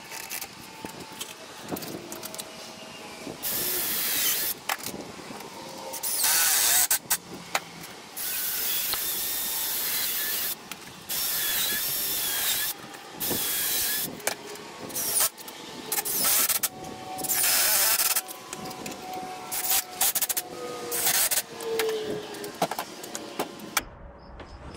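Cordless drill running in repeated bursts of about one to two seconds with short pauses, drilling into dry wooden boards clamped on a workbench, pilot holes so the wood doesn't split.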